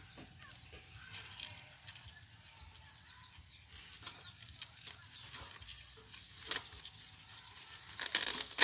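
Layers of a burnt computer circuit board being peeled apart by hand: scattered small crackles, one sharper crack about six and a half seconds in, and loud tearing and crackling near the end, over a steady high hum.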